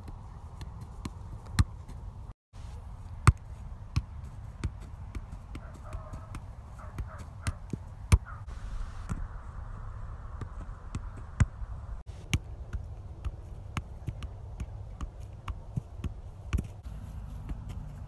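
Soccer ball being juggled and kicked: a string of sharp, irregular thuds of the ball off foot and knee, about one or two a second, over a steady low rumble.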